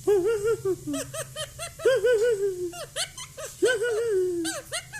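Pet parrot imitating laughter: three bouts of quick 'ha-ha-ha' pulses, each sliding down in pitch.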